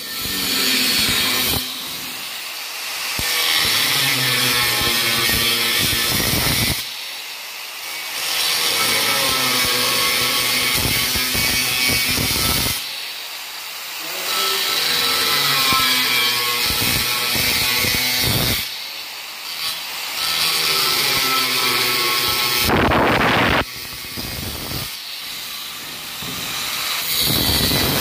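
Handheld angle grinder cutting into a perforated metal 50x50 cable tray. The cut comes in several loud passes of a few seconds each. Between them the grinder keeps spinning with a lower, wavering whine.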